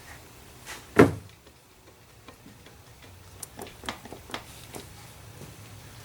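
A single sharp knock about a second in, then a quick, irregular run of light clicks and taps from work under the car.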